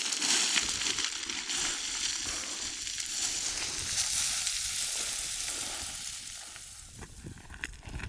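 Hiking boots running and sliding down loose scree, a steady gritty crunching hiss that fades about seven seconds in, with a few separate clicks near the end.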